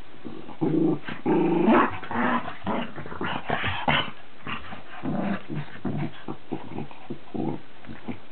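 A Cavalier King Charles Spaniel and a Cairn Terrier wrestling, with growling and snarling in bursts. The growls are loudest in the first few seconds, then come shorter and quieter.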